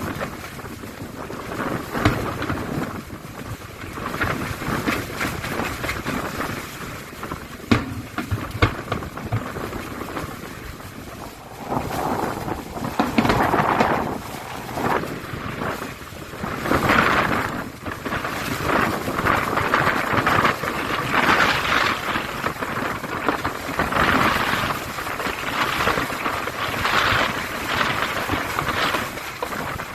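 Fireworks going off: scattered sharp bangs, turning into denser crackling and bursts from about twelve seconds in. Wind buffets the microphone.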